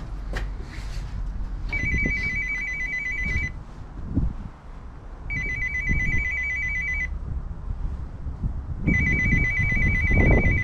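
Apartment-block door intercom sounding its calling tone from the keypad panel: a high trilling ring about two seconds long, three times with short pauses between, the flat's number dialled and not yet answered.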